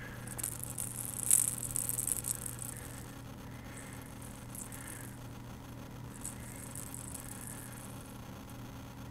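A kitten batting a small yellow toy ball around on a fabric couch: light rattling and scuffling, busiest in the first couple of seconds, with a few more scuffles later.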